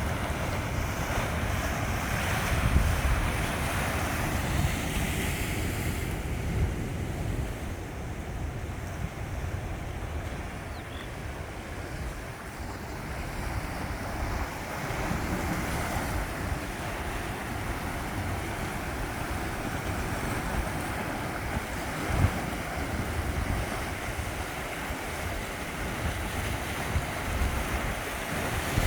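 Sea surf washing steadily against the shore, with wind buffeting the microphone in low rumbles.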